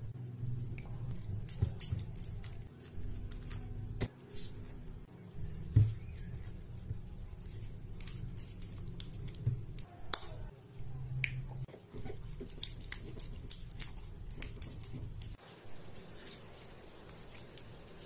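Slime being mixed in a glass bowl and then handled: scattered clicks and taps of a spoon against the glass and soft sticky squishing, over a low steady hum.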